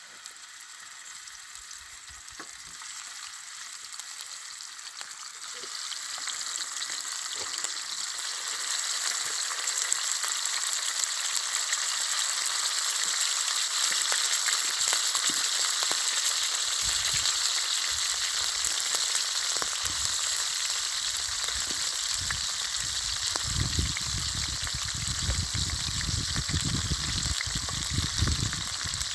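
Food frying in hot oil in a pan: a steady sizzle that grows louder over the first several seconds and then holds, with low rumbles in the later part.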